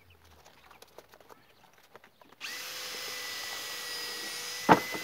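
Faint light ticks, then a power drill starts about two and a half seconds in and runs at a steady pitch, with one sharp knock near the end, the loudest sound.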